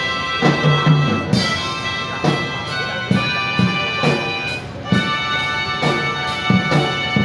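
Marching band playing: sustained brass and wind chords that change every second or so, over repeated drum strokes.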